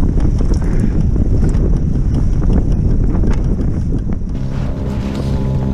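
Strong wind buffeting the microphone, a dense low rumble with irregular gusts. About four seconds in, background music with steady held notes comes in.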